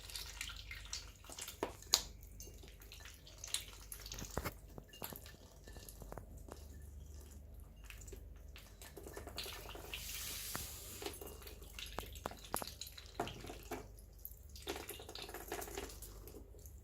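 Ducklings feeding from wet food and water, their bills dabbling and pecking in a rapid, irregular run of small wet clicks and drips.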